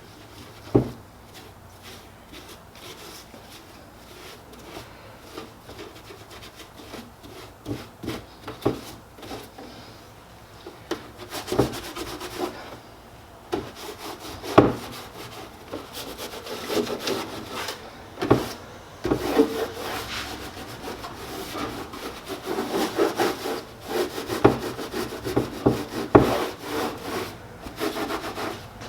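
Acetone-soaked rag rubbed back and forth over ABS plastic patches on a hard motorcycle saddlebag, smoothing the patched holes by melting the surface. The scrubbing grows busier and louder in the second half, with a few sharp knocks from the bag being handled.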